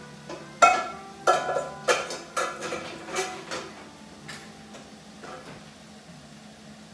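Metal pots and pans clanking and clattering as they are pulled out and handled: a quick run of about eight ringing knocks in the first few seconds, then a few softer knocks.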